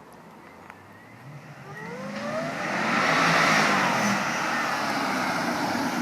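Mercedes CLS500's swapped-in supercharged 5.5-litre M113 AMG V8 accelerating hard, its pitch rising as the revs build. It grows louder to a peak about three seconds in and stays loud after that.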